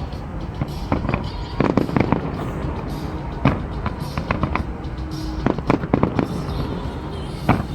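Fireworks display: shells bursting in sharp, irregular bangs, about fifteen, several coming in quick clusters, over a continuous low rumble.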